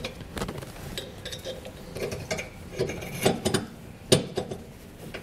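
Button-head cap screws being started by hand through a steel suspension bracket into frame-rail clips: scattered small metallic clicks and light knocks, with one sharper knock about four seconds in.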